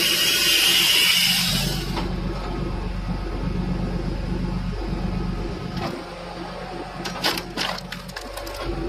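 Tractor engine running steadily while a tractor-mounted hydraulic log splitter pushes a log through its wedge. A high hiss stops about two seconds in, and a few sharp cracks and knocks come near the end.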